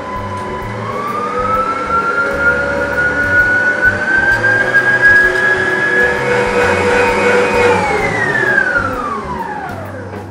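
Electric stand mixer motor whining as it beats cake batter, its pitch rising as the speed is turned up. In the last couple of seconds the whine falls steadily in pitch as the mixer is switched off and winds down.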